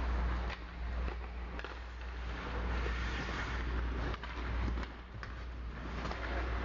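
Ice hockey play heard from the stands: skates scraping on the ice and a few sharp clacks of sticks and puck, over a steady low hum of the rink's building.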